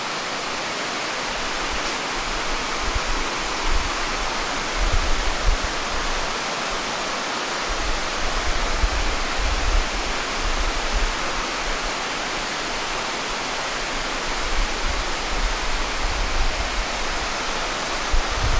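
Steady rushing of a waterfall falling into a rainforest gorge, with irregular low rumbling of wind on the microphone.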